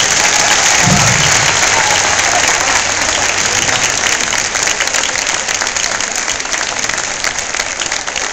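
Crowd applauding: dense, sustained clapping from many hands, easing slightly toward the end.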